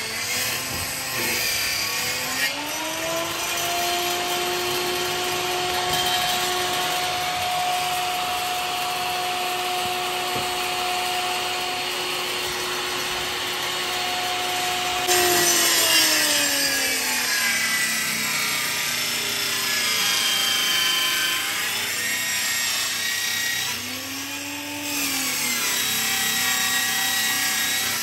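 Electric circular saw cutting plywood sheet for cabinet doors. The motor whines up to speed and holds steady through a long cut, then winds down. Near the end the saw starts briefly again and runs down.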